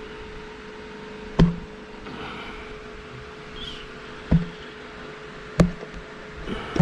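Four sharp knocks, spaced a second or more apart, from tools or parts being handled during the engine teardown, over a steady hum.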